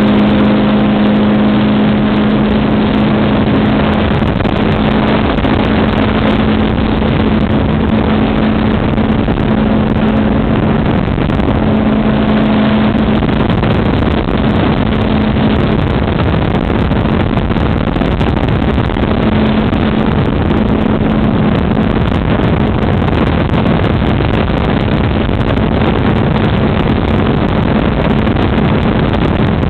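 Ultralight trike's engine running steadily at high power through the takeoff roll and climb, heard onboard under heavy wind noise on the microphone.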